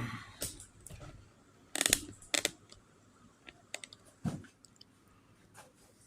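Scattered clicks and knocks of tools and parts being handled and set down, with a louder clatter about two seconds in and a duller knock a little after four seconds.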